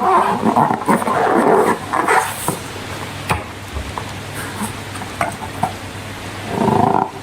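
Slime being squished and stirred by hand: irregular wet, sticky squelches and crackles with sharp clicks, a dense run in the first couple of seconds and another near the end.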